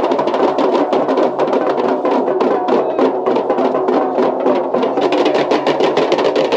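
A group of drums beaten with sticks in a fast, driving rhythm, many strokes a second, loud and continuous.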